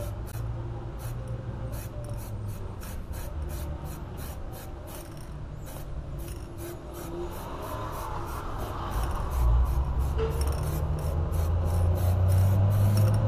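Aerosol can of matte spray paint hissing in short repeated pulses, about three a second, as it coats a car's alloy wheel. A low rumble grows louder in the second half.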